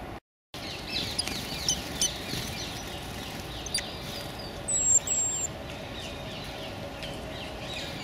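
Small wild songbirds calling: a rapid series of short falling chirps, with one loud, thin, high whistle about five seconds in and a few sharp clicks. A brief dropout cuts the sound just after the start.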